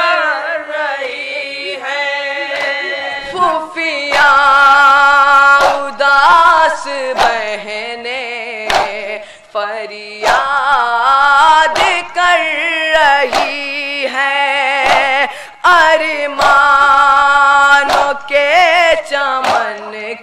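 Male voice chanting a noha (Shia lament) in long held, wavering notes, amplified and loud, while mourners beat their chests in matam, heard as sharp slaps roughly every second or two.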